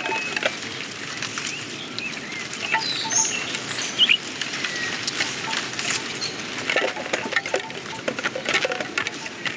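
Animated-film sound-effects track: a busy patter of small clicks and taps with short, high chirps and squeaks over a steady hiss, with one sharper click about four seconds in.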